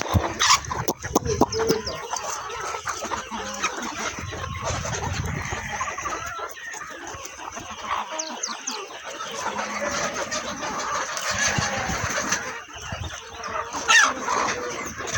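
A flock of free-range local hens clucking and calling together, with a rooster crowing among them and a few sharp knocks, the loudest near the end.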